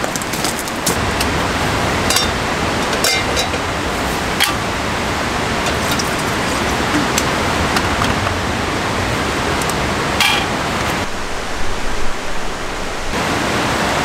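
Steady rushing of a valley stream mixed with fine, misty rain, with a few sharp clicks and knocks of a bottle and mug being handled on a camp table.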